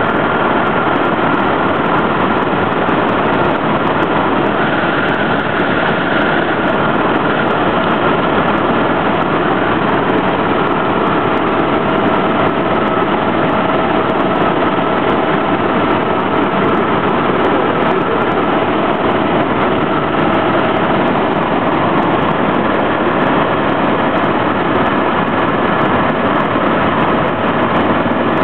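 Helicopter in flight heard from inside the cabin: a loud, steady noise of engine and rotor with a couple of faint steady whines.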